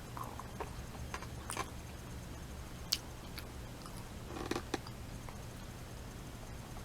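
Chewing a beef hot dog baked in a pastry blanket: scattered faint mouth clicks, with a steady low hum underneath.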